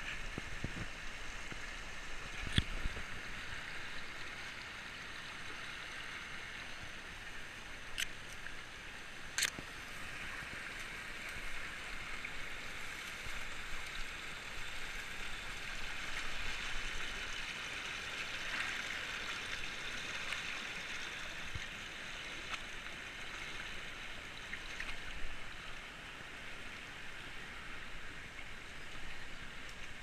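Shallow rocky stream rushing and burbling steadily over rocks, with a few sharp knocks in the first third.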